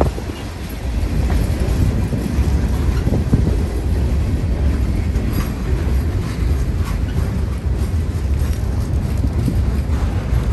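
Freight train cars rolling past: a steady low rumble of wheels on rail, with a few faint clicks.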